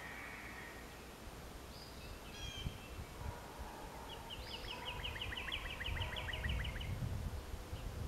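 Songbirds singing in the background: a short high phrase near the start and another about two seconds in, then a rapid trill of about six notes a second lasting nearly three seconds. Low rumbling wind noise builds under it in the second half.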